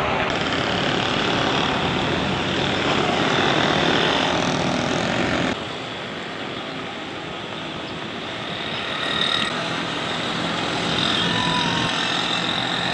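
Steady outdoor street noise with no clear single event. It drops suddenly to a quieter background about five and a half seconds in, at an edit.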